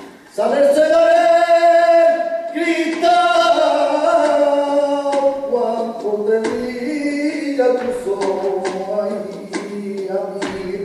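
A man singing long, held notes that waver and slide in pitch, starting about half a second in, with little audible accompaniment.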